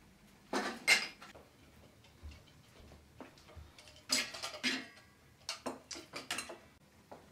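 Metal tray, steel bowls and a china plate being set down on a wooden table: a clatter with sharp clinks about half a second in, another a little after four seconds, and a run of lighter clinks near six seconds.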